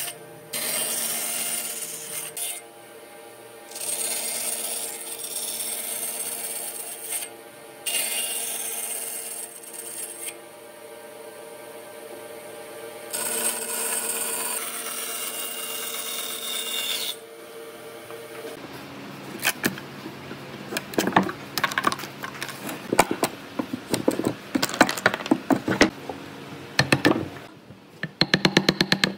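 A power tool working wood: a steady motor hum with four passes of loud cutting noise a few seconds each. About two-thirds through the hum stops and a quick, irregular run of knocks and taps on wood follows.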